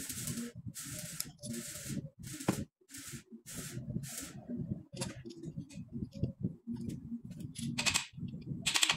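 A quick series of short hissing bursts, about seven in the first four seconds and two more near the end, over faint clinks and rustles of handled metal parts.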